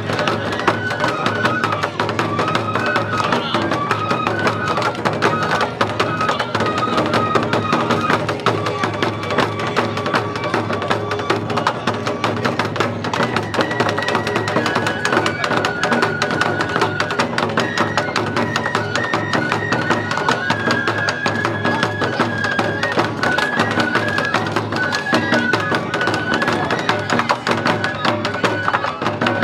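Live lion-dance festival music: a bamboo flute plays a stepped, high melody over steady taiko drumming and wooden clacking percussion.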